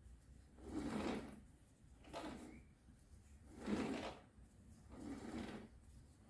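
Slow repeated rubbing or scraping strokes, four in all, about one every second and a half.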